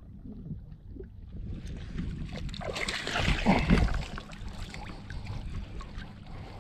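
Water splashing as a small bass is scooped into a landing net and lifted out, water streaming off the mesh. The splashing builds through the first half and is loudest about halfway through, then eases.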